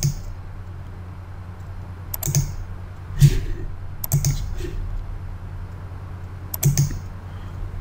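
Computer mouse clicking: about five short, sharp clicks spread over several seconds, some in quick pairs, over a low steady electrical hum.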